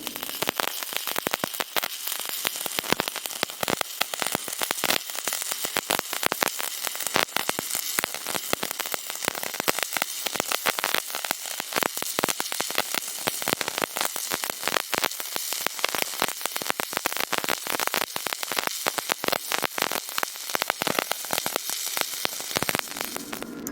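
Stick-welding arc crackling steadily. It starts suddenly and cuts off near the end.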